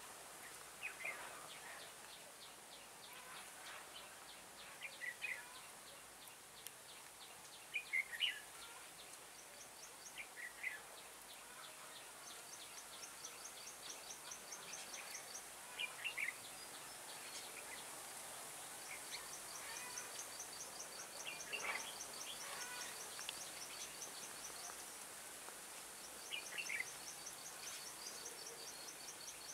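Red-whiskered bulbuls giving short, chirpy song phrases every few seconds. Behind them, a fast, high ticking trill comes in several runs over a steady high hiss.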